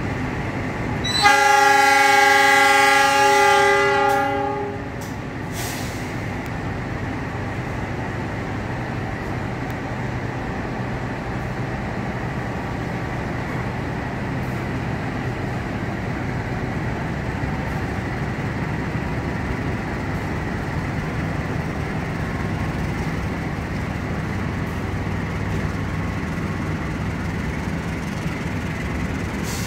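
Diesel locomotive horn sounding one blast of several tones for about three seconds, starting a second in. A steady low engine rumble runs on after it.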